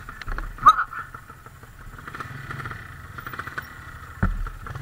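Small trail motorcycle engine running at low revs while climbing a steep, rutted dirt track, with a sudden thump about four seconds in.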